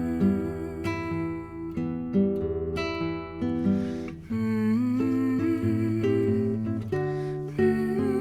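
Background music: plucked acoustic guitar with a gliding melodic line over it.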